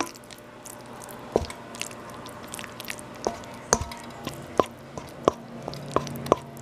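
Spatula stirring a thick mix of condensed milk and pumpkin puree in a stainless steel bowl: soft wet squishing with scattered light clicks and taps of the spatula against the bowl.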